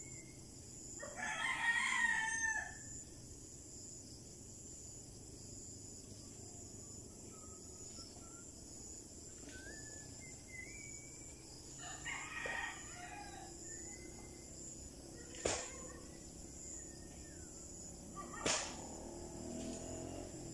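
A rooster crowing about a second in, and again more faintly around twelve seconds in, with small bird chirps between. Two sharp clicks near the end.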